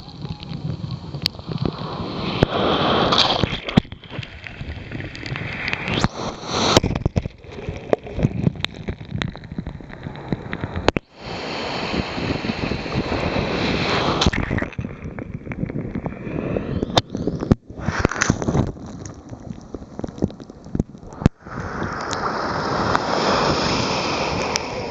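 Sea water sloshing and splashing in uneven surges, with scattered sharp splats; the sound breaks off abruptly a few times.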